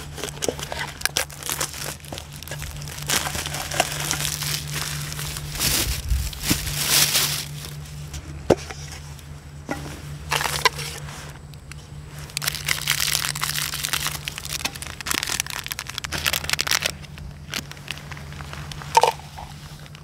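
Hands crinkling and tearing the packaging of a paper instant-food cup and ripping open foil seasoning sachets: irregular rustling and crackling with sharp snaps, one of the loudest near the end.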